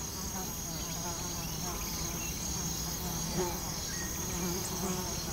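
Insects buzzing in a summer meadow: a steady low buzzing drone with many short wavering buzzes over it, and a steady high-pitched chirring.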